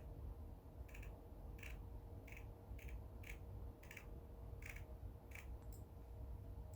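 A series of faint, sharp clicks, about nine of them at uneven intervals, over a low steady hum.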